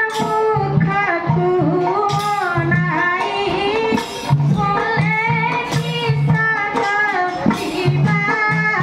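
Folk music for a Radha-Krishna raas: a singing voice with gliding melody over a regular low beat.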